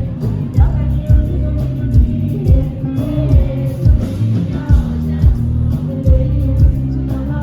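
Loud live concert music: a singer over a band with a heavy, steady bass beat.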